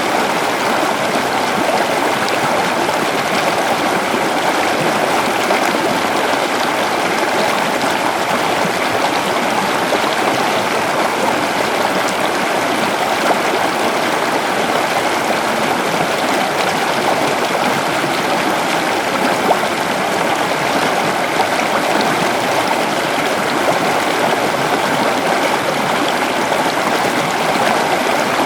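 Waterfall: water falling and rushing, a steady, even roar with faint splashes over it.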